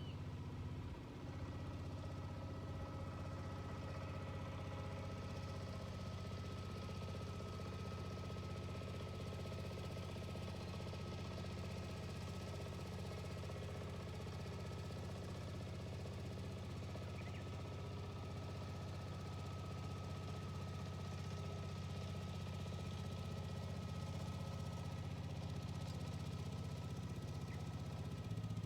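Diesel engine of a Yanmar walk-behind cultivator running steadily at idle.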